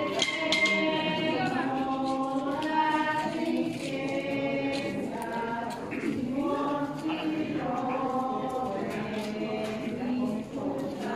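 A crowd of people singing a religious hymn together, a slow melody in long held notes.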